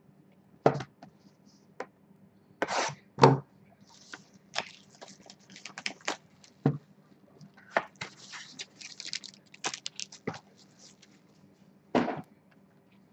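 Foil-wrapped trading card boxes and scissors being handled on a tabletop: several sharp knocks and taps, with a stretch of crinkling, rustling foil through the middle.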